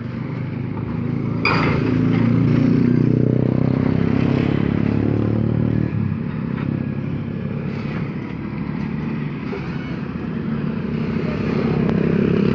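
A motor running steadily, with a sharp clatter about a second and a half in.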